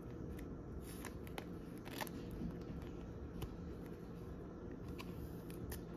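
Faint crinkles and light ticks of a soft plastic card sleeve being opened and a trading card slid into it, with a slightly louder crinkle about two seconds in.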